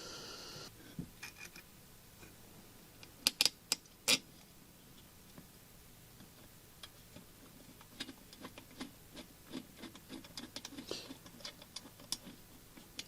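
Small metal parts being handled during hand reassembly of a diesel heater, clicking and tapping. There are a few sharp clicks about three to four seconds in, then a run of lighter ticks later on.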